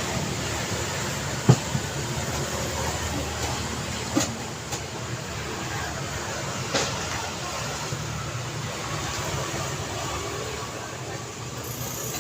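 City street traffic: a steady wash of passing vehicles, with a few sharp knocks, the loudest about a second and a half in and two more near 4 and 7 seconds.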